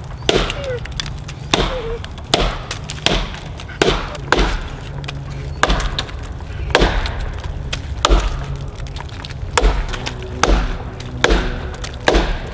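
Axe chopping into dry dead elm wood, about a dozen sharp strikes at roughly one a second. A dog whines faintly between some of the blows.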